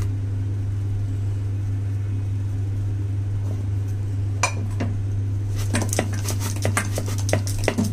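Wooden rolling pin clacking and knocking against a hard rolling board as dough is pressed and rolled out for a paratha: a single click about halfway through, then a quick run of clacks near the end, over a steady low hum.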